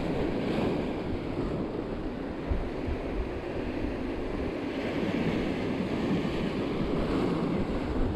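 Ocean surf breaking and washing over shore rocks: a continuous rushing and churning of water, with one wave surging up a little louder about five seconds in.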